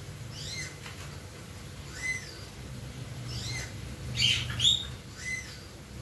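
Young hill myna babbling: short rising-and-falling calls about every second and a half, with two louder ones close together just past the middle. This is a juvenile myna's babbling stage as it learns to mimic speech.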